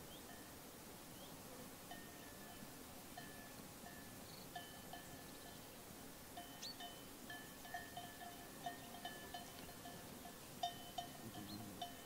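Sheep bells on a grazing flock tinkling faintly, struck irregularly as the sheep move their heads, the strikes coming more often in the second half.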